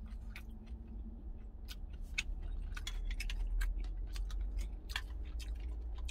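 Eating sounds: a wooden spoon clicking and scraping against a food container, with chewing and sipping, over a steady low rumble.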